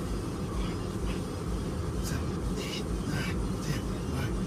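A steady low rumble in a semi-truck cab, with a man's short, sharp hissing breaths several times in a row as he works through exercise reps.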